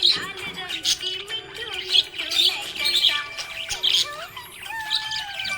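Budgerigars chirping and warbling: busy bright chirps in clusters every half second or so, mixed with sliding and held whistled notes, the happy chatter of contented budgies.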